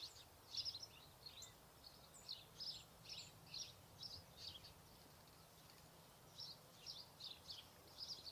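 Faint chirping of small birds: short high notes, several a second and irregular, easing off for about a second and a half near the middle.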